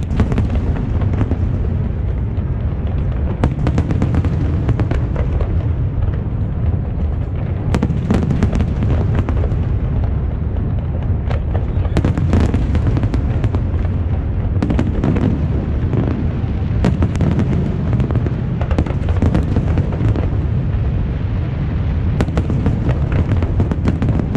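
Fireworks display: a dense, continuous rumble of aerial shell bursts, with many sharp bangs and crackles going off one after another.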